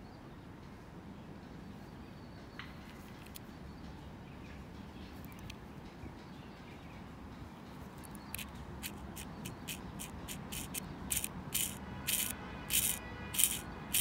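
Small metallic clicks from the moving mechanism of a sterling silver Zippo lighter worked by hand. They start about eight seconds in at roughly three a second and grow louder toward the end, the last few with a brief metallic ring. Before the clicks there is only a faint steady background.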